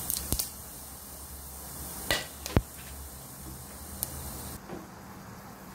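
Cumin seeds and whole spices frying in hot oil in a pressure cooker: a light steady sizzle with a few sharp clicks, the loudest two a little after two seconds in.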